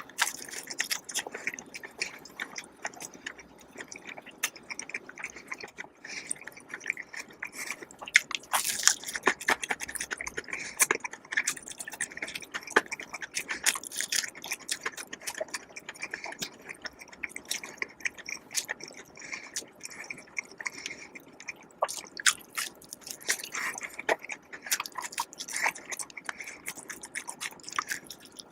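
A person chewing and biting food close to the microphone, with many short sharp clicks and crunches.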